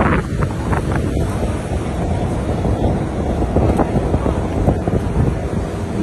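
Wind noise on the microphone over steady city street traffic noise.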